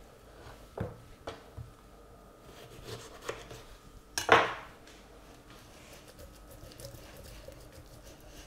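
Kitchen knife clicking against a wooden cutting board as a lemon is cut, with one much louder knock about four seconds in, followed by quieter handling as a lemon half is rubbed over a raw chicken.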